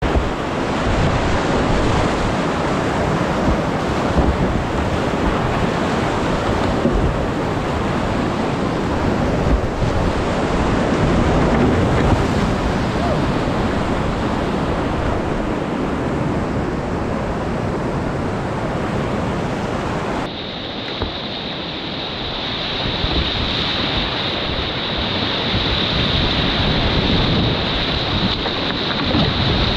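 Whitewater rapids of a rocky river, a steady loud rush of water. About twenty seconds in the sound changes abruptly: the highest hiss drops out and a thin high tone comes in.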